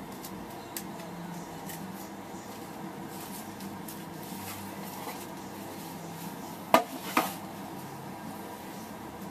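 Light rustling and faint clicks of a cedar cigar box and its cigars being handled, with two sharp knocks close together about seven seconds in, over a steady low hum.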